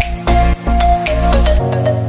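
Background music with a steady electronic beat; about one and a half seconds in, the beat stops and a held low chord carries on.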